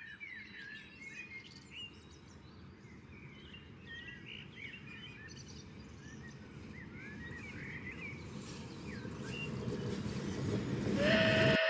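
Small garden birds chirping over a low rumble that builds steadily louder as the MTH O-gauge model of a Union Pacific 9000 class 4-12-2 steam locomotive runs toward the camera on the track. Near the end a steady pitched tone starts and the rumble cuts off abruptly.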